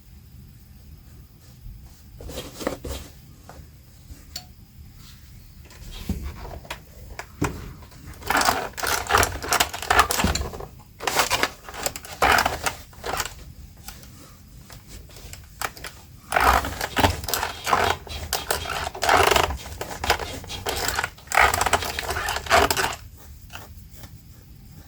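Bursts of rapid clicking and rustling from hands working on denim and sewing materials, with the busiest stretches in the middle.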